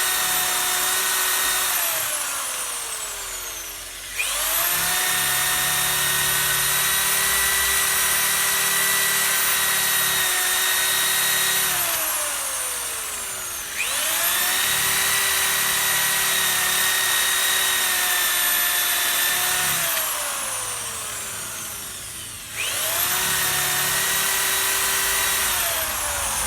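Corded Titan reciprocating saw cutting into bay tree stump wood in long bursts. It runs steadily for several seconds, is released and winds down with a falling whine, then starts up again, three times over.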